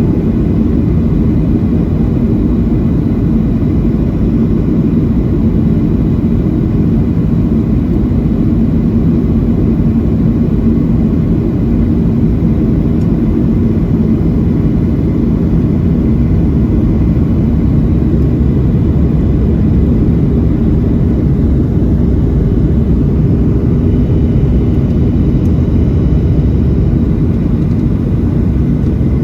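Steady roar inside the cabin of a Boeing 737-700 in flight: engine and airflow noise, deep and even, with a faint steady hum running through it.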